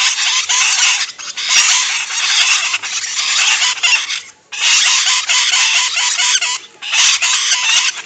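Lovebird chattering in long, rapid, shrill trills, stretches of one to three seconds broken by brief pauses about one, four and seven seconds in.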